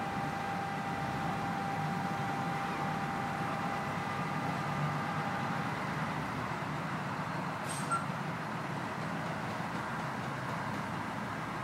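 Crane engines running steadily during a boat lift, with a thin whine that fades out about six seconds in. A single sharp click comes about eight seconds in.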